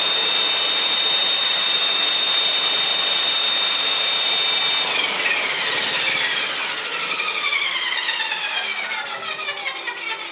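CopterX 450 electric RC helicopter's brushless motor, gearing and rotor running at a steady high whine, then spooling down about five seconds in: the whine falls steadily in pitch and fades as the rotor slows, with a fluttering pulse near the end.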